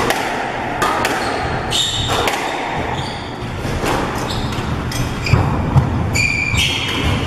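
Squash rally: the ball struck by rackets and hitting the walls in a string of sharp knocks, with rubber-soled court shoes squeaking on the wooden floor in short squeals about two seconds in and again near the end.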